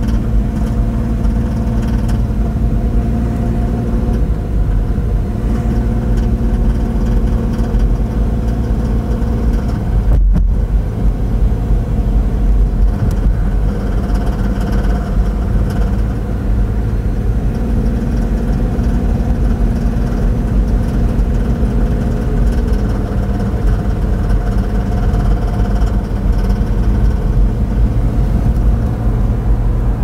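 Inside the cabin, a 2005 Dodge Grand Caravan's 3.3-litre V6 running under load over steady low rumble, its pitch shifting several times. This is the knock or rattle under load that the owner is recording, which a Chrysler dealer put down to an engine-computer software issue.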